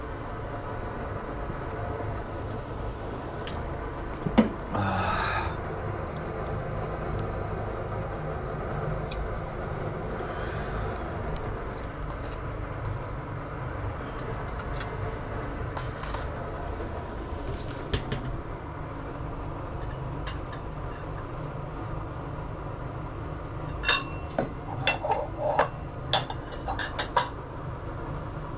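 Kitchen clatter over a steady low hum: dishes and utensils clink and tap now and then, with a brief knock about four seconds in and a run of quick clinks near the end.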